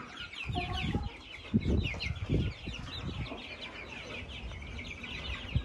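A flock of six-week-old chicks peeping continuously, many short, high chirps that slide downward and overlap. Several dull thumps come in the first few seconds.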